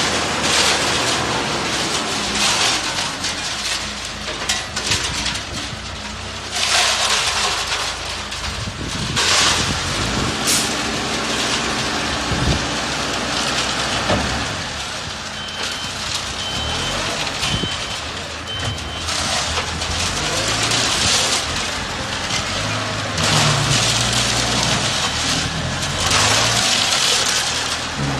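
Self-loading mobile concrete mixer running, its diesel engine working steadily under repeated surges of loud hissing noise. A short run of four evenly spaced warning beeps sounds about halfway through.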